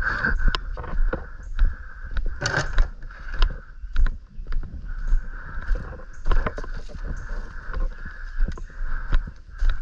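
Movement and handling noise: scattered clicks and knocks over a low rumble, with a steady high-pitched hum underneath.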